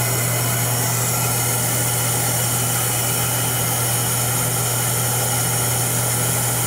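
Steady drone of running shop machinery: a strong low hum with an even hiss over it, unchanging throughout.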